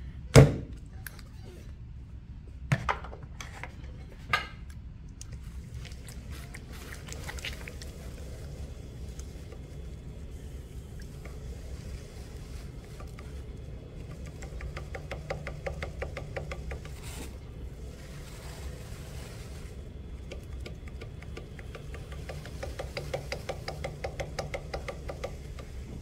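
A ball of clay is thrown down onto a pottery wheel head with a loud thud about half a second in, followed by two lighter knocks. Then the electric potter's wheel runs with a steady low hum while wet hands rub and press the clay to center it.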